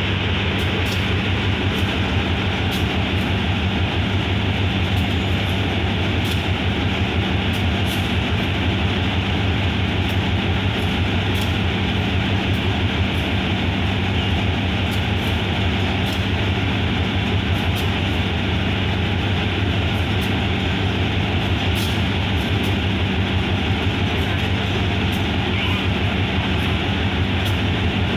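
GE diesel-electric locomotive of Thailand's GEA class idling steadily at a standstill, a loud, even engine hum.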